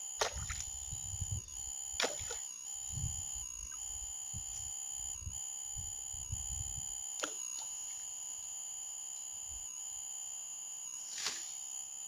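A steady high-pitched drone of several held tones. Low rumbles come and go during the first seven seconds, and a few sharp clicks sound, the clearest near the end.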